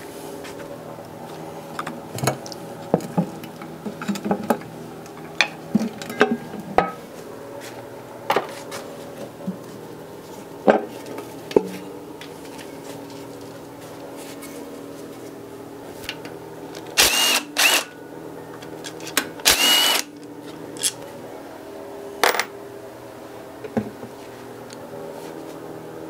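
Scattered clicks and clanks of metal engine parts being handled and set down as the oil pan comes off the block. About two-thirds of the way in come two short whirring runs of a cordless power tool, about two seconds apart, as it spins out the oil pickup tube bolts.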